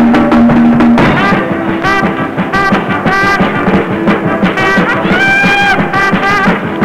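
Brass-led instrumental music on the soundtrack: a run of quick short notes, with one longer held note about five seconds in.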